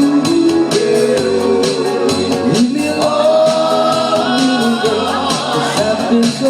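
A doo-wop vocal group singing in close harmony, holding long chords, over a steady percussive beat.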